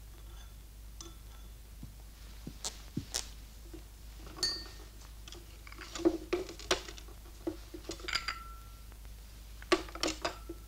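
China teacups, saucers and a teapot clinking as tea is served at a table: a scattered series of sharp clinks, a few of them ringing briefly, busiest in the second half.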